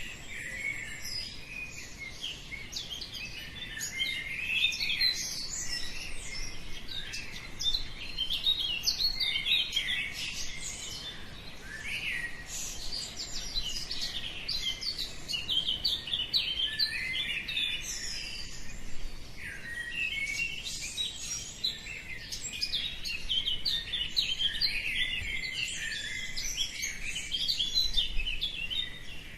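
Many songbirds chirping and singing at once in a dawn chorus: a dense tangle of short, quick high notes and trills with no pause.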